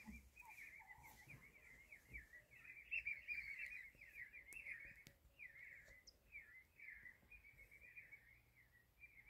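Faint bird chatter: a rapid, unbroken run of short high chirps.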